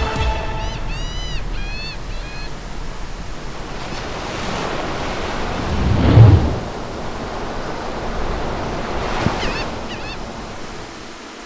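Ocean surf washing steadily, with one wave surging loudest about six seconds in. A bird calls in short arched chirps near the start and again about nine and a half seconds in.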